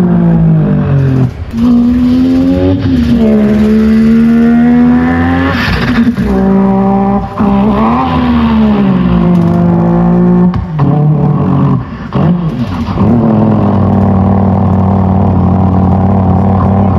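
A man imitating a car engine with his mouth into a microphone, amplified over a stage PA: the engine note climbs and drops in pitch several times like revs and gear changes, then holds one steady drone for the last few seconds.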